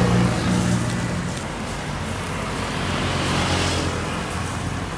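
Road traffic: a motor vehicle's engine with a steady low hum that fades after the first second, then a rushing noise that swells about three to four seconds in, as of a vehicle going by.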